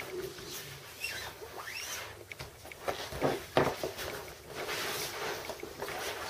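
Inflated vinyl pool toys being handled: the plastic rubs and squeaks, with a few knocks, the loudest a little past the middle.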